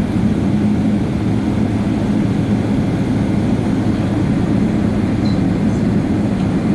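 Steady low rumble and hum inside the cabin of a Boeing 777-300ER taxiing toward takeoff, its engines running at low power; the level holds even, with no spool-up.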